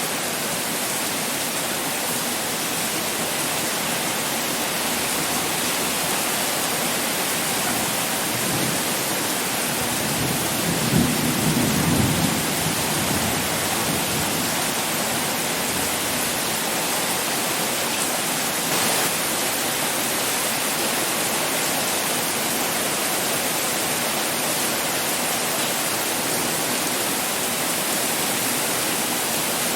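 Pouring rain, a steady heavy hiss, with a brief low rumble swelling up about eleven seconds in.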